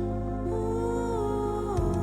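Background music: soft, sustained new-age style chords, with the notes shifting to a new chord about three-quarters of the way through.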